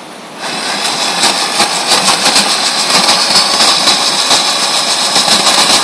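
Small pickup truck's engine run hard while a tire spins in wet mud and water, starting about half a second in: a loud, steady rushing hiss with a crackle of flung mud and spray. The truck is stuck, and the spinning tire is digging itself deeper.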